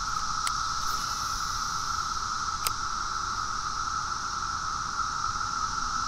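Chorus of 17-year periodical cicadas: a steady, unbroken drone at two pitches, one mid and one high, with a couple of faint clicks over it.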